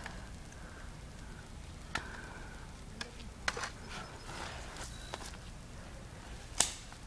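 About five sharp, scattered pops of airsoft pistols firing, the loudest near the end.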